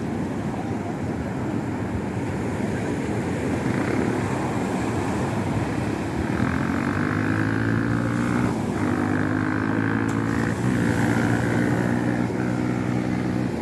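Steady wind and surf noise, joined about halfway through by a motor's steady droning hum that breaks off briefly twice.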